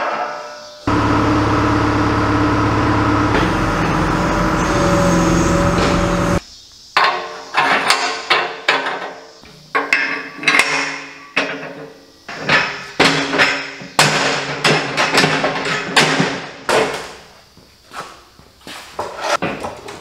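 A loud, steady power-tool noise for about five seconds, then a long run of irregular hammer blows on steel, several a second at times, during fabrication of a steel pallet-fork bracket.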